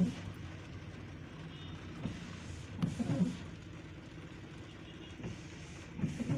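Car engine running, heard from inside the cabin as a steady low hum, with a few short low sounds about three seconds in and near the end.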